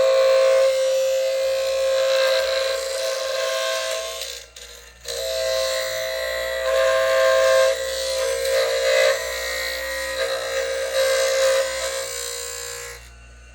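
Foley 355 sharpener's grinding wheel running against a pair of planer blades: a steady motor whine under the hiss of grinding. It cuts out briefly about four seconds in, starts again, and stops near the end.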